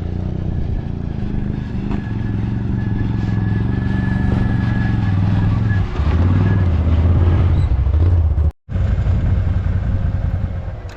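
Four-wheeler engine running under way, its pitch shifting with the throttle, and louder and a little higher after about six seconds. The sound drops out for an instant near the end.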